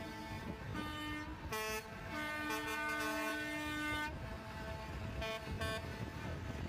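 Truck air horns honking from a line of concrete mixer trucks: several short toots and one long blast of about two seconds in the middle, with more than one pitch sounding at once, over the low rumble of the trucks' engines.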